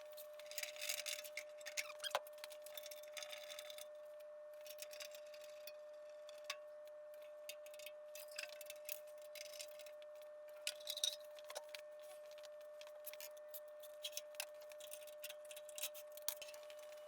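Faint, scattered clicks and light taps, irregular and spread through the whole stretch, over a steady high-pitched hum.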